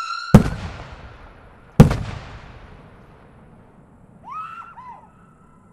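Two Klasek Scream UFO 45 fireworks: a high screaming whistle cuts off with a loud bang, and a second bang follows about a second and a half later. Each bang echoes as it fades.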